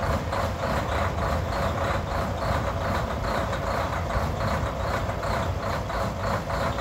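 Diesel engine of a Freightliner Cascadia semi tractor idling, a steady low rumble with an even pulse of about four beats a second.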